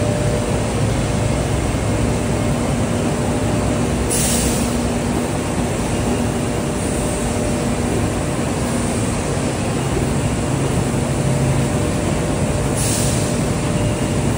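Industrial bread production line machinery running steadily: conveyors and dough-handling machines make a loud, continuous noise with a steady hum. Two short hisses break through, about four seconds in and again near the end.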